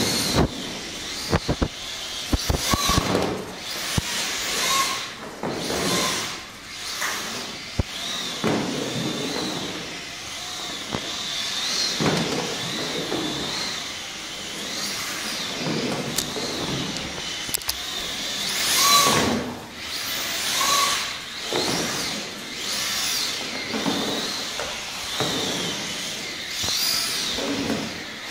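Scale model car's electric motor whining as it drifts on a parquet floor, the pitch rising and falling over and over with the throttle, mixed with tyre scrub. A few sharp knocks in the first few seconds.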